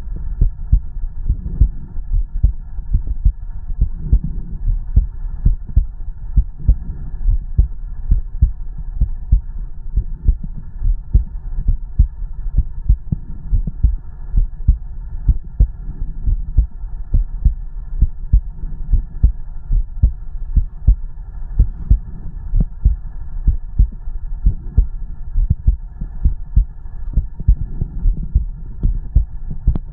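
Human heartbeat recorded close up: a steady, regular beat of low thumps. A low stomach rumble swells a few times underneath it.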